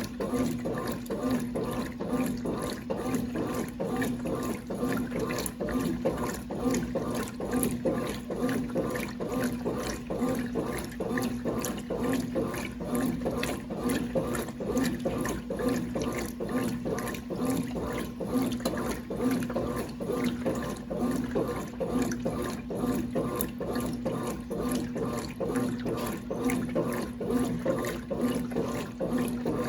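1996 Brastemp Clean 5 kg washing machine running, with water swishing and a steady hum that pulses at an even rhythm.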